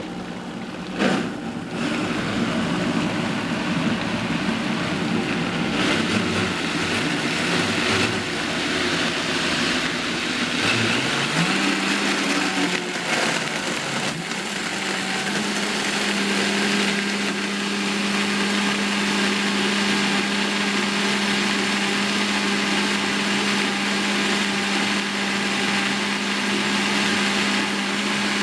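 High-powered countertop blender running, crushing ice and fresh strawberries and banana in milk. The grinding is rough and uneven at first; about eleven seconds in the motor pitch rises and then holds a steady whir as the mixture turns smooth.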